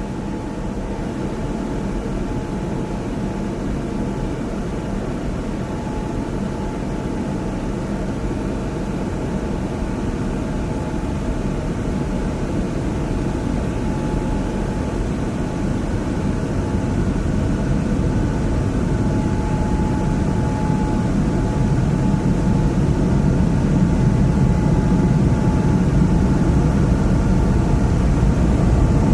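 Car wash heard from inside the car: a steady, muffled wash of water and machinery against the body, low in pitch with a faint steady hum above it, growing slowly louder.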